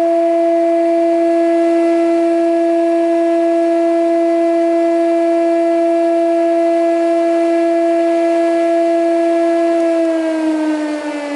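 IMA 40 thickness planer running empty with a steady, high whine. About ten seconds in it is switched off and the whine starts falling in pitch as the cutterhead coasts down.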